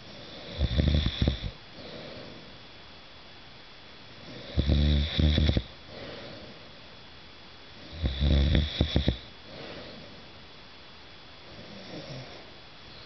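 A man snoring loudly in a regular rhythm: three long, fluttering snores about three and a half seconds apart, each followed by a softer breath out, then a weaker snore near the end.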